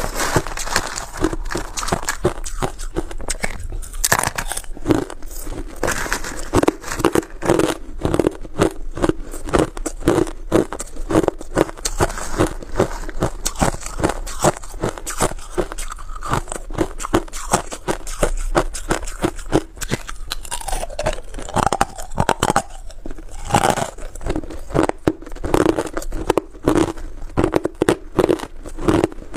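Hard ice being crunched and chewed in the mouth, picked up close by a clip-on microphone: a dense, irregular run of crisp crunches that goes on throughout.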